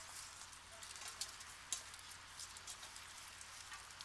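Several dogs eating from steel bowls: faint, scattered clicks and ticks of chewing, licking and bowls knocking, with one sharper click a little before halfway.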